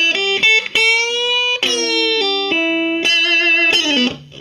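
Squier Classic Vibe '50s Duo-Sonic electric guitar playing a blues lead fill: single notes, with a slow upward string bend about a second in and wavering vibrato on a held note after about three seconds.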